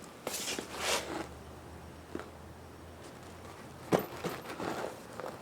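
Handling noises from working on a fat bike tire: rustling and scraping, a small click, and a sharp knock about four seconds in.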